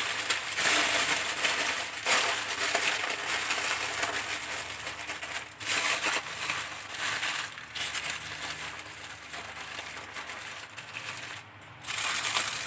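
Aluminium foil crinkling and crumpling as it is pressed and folded over a baking tray to seal it. There are irregular crackles, with a brief lull near the end.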